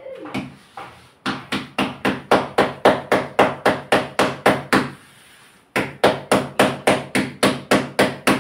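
Jowar (sorghum) roti dough being patted flat by hand on a floured counter: rapid palm slaps, about five a second, in two runs with a short pause about five seconds in.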